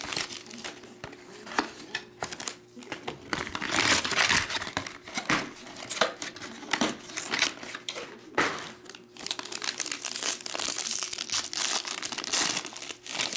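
Plastic shrink wrap crinkling and tearing as it is stripped from a trading-card hobby box, then the foil card pack inside crinkling as it is lifted out and handled. A run of sharp crackles and rustles, louder about four seconds in and again near the end.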